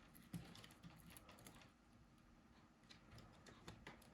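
Near silence with a few faint, scattered plastic clicks from a Nokia E71's front cover being handled and pressed into place.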